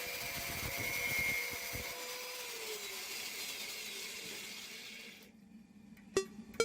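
Power tool motor spinning down after cutting steel, its steady whine dropping in pitch and fading out. Near the end the sound cuts off and a beat of music starts with a couple of sharp drum hits.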